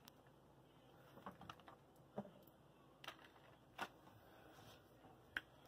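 Near silence with a few faint, scattered light clicks and taps as kitchen utensils are handled over a foil baking pan and a pan of sauce.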